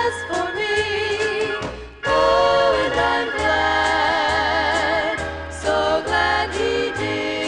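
Gospel music: a voice holding long, wavering notes over a steady bass line, with a brief break about two seconds in.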